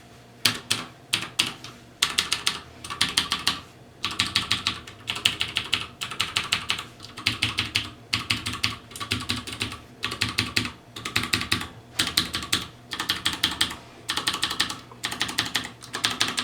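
Typing on a Ducky Shine 3 mechanical keyboard with Cherry MX White (Milk) switches, in quick bursts of rapid keystrokes with short pauses between them.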